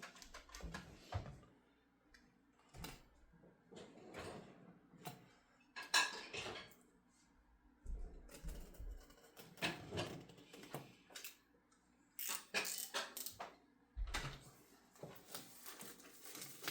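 Cellophane wrap on a phone box being cut and peeled off by hand: scattered crinkles, scrapes and light taps, with a denser stretch of crinkling near the end.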